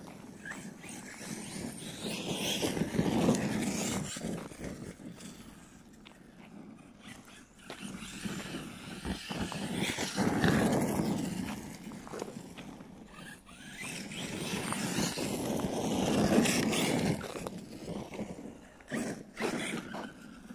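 Arrma Kraton 6S electric RC monster truck running on loose dirt, its motor and tyres swelling louder three times as it passes close by.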